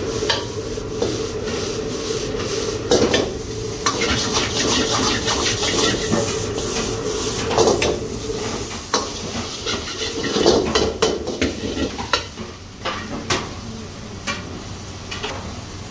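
Steel ladle scraping and clanking against an iron wok as fried rice is stirred and tossed, with the rice sizzling in the hot wok. Irregular clinks come over the steady hiss of a gas wok burner.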